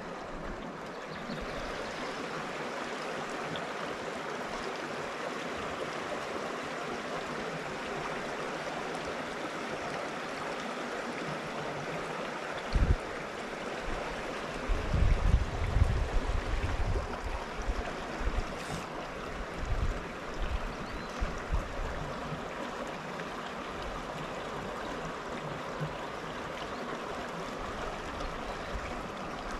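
Mountain creek flowing: a steady, even water noise. A few short low bumps come through a little past the middle.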